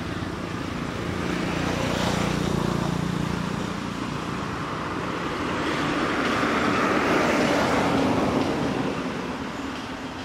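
Outdoor background noise of passing road vehicles, a broad rushing sound that swells and fades twice with a faint low engine hum underneath.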